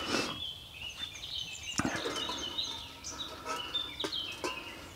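Songbirds chirping and singing, many short quick notes throughout, with a single sharp knock about two seconds in.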